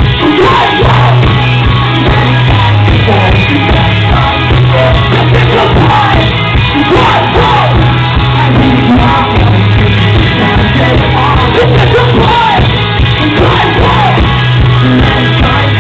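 Loud live rock band playing, with a singer's voice over a steady, heavy bass line and full band.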